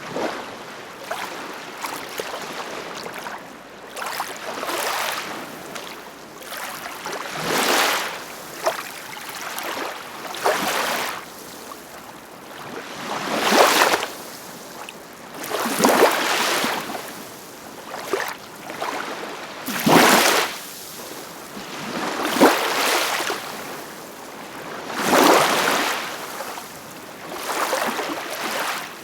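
Ocean waves breaking and washing in, one splashing surge about every two to three seconds.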